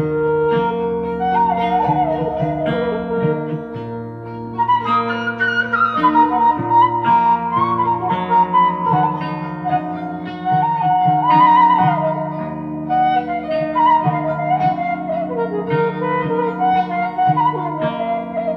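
Background instrumental music: a wavering wind-instrument melody over plucked string notes.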